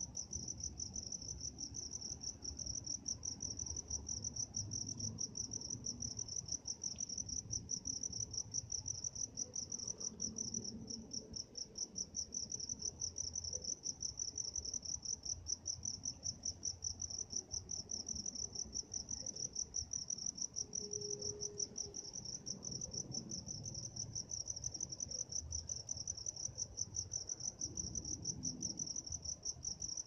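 Crickets chirping in one continuous, rapidly pulsing high trill, with a faint low rumble beneath.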